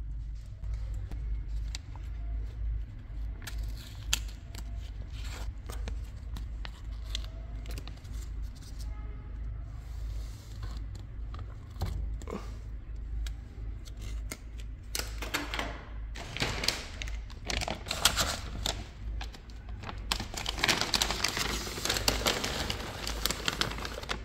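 Rustling and crinkling handling noise with scattered clicks over a low steady hum. It grows denser and louder in the last few seconds.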